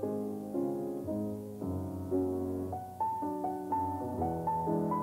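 Piano music: a gentle melody over chords, about two or three notes struck each second, moving higher in the second half.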